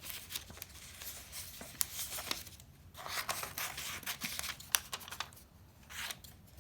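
Scissors snipping through coloured paper in a few short runs of quick cuts, with pauses between them.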